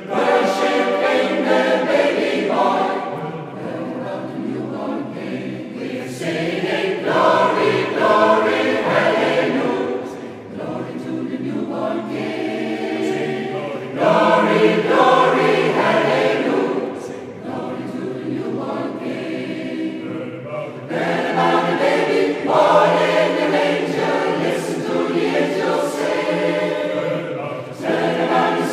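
Large mixed choir of women and men singing together in long sustained phrases, swelling louder and softening in turn.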